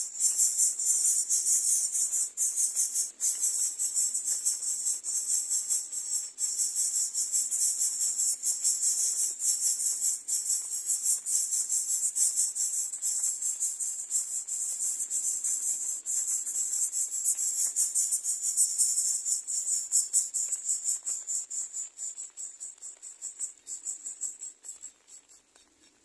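Greater coucal nestlings begging: a very high-pitched, rapid buzzing chatter, continuous and loud, tapering off in the last few seconds.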